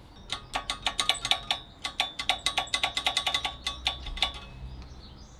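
Steel bars of a welded grate clicking and ringing as it is handled: a quick, irregular run of light metallic knocks for about four seconds, each with a short bell-like ring.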